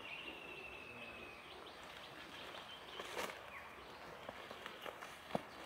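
Faint rustling and twig snaps of someone moving through dry leaves and undergrowth, with a louder brush of leaves about three seconds in. A thin, slightly falling high call sounds for about a second and a half near the start.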